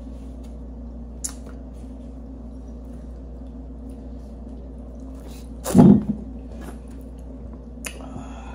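A loud, low, croaking burp about six seconds in, over a steady low hum, with a couple of faint small clicks.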